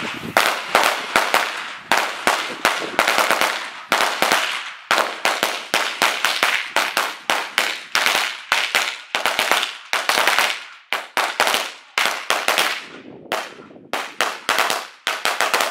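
A string of firecrackers going off in rapid, irregular crisp bangs, several a second, thinning out near the end. Every cracker fires, with no duds.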